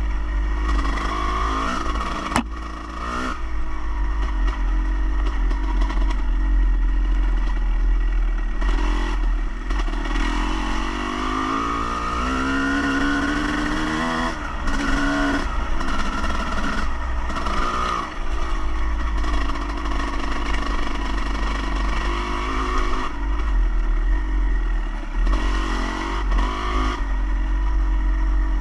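A motor vehicle engine running and revving, its pitch rising and falling again and again, over a steady low rumble. A sharp click comes about two seconds in.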